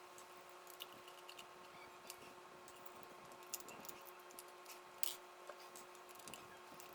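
Faint scattered clicks and light scrapes of a small screwdriver unscrewing the screws that hold a laptop hard drive in its caddy, with a slightly sharper click about five seconds in, over a steady faint hum.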